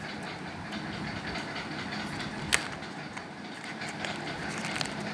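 Handling of a cardboard phone box and its accessory tray, with a sharp click a little past halfway and a few fainter ticks, over a steady background noise.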